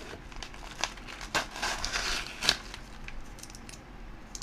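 Padded mailing envelope crinkling and crackling as it is handled and turned over in the hands, with irregular sharp crackles, the loudest about a second and a half and two and a half seconds in.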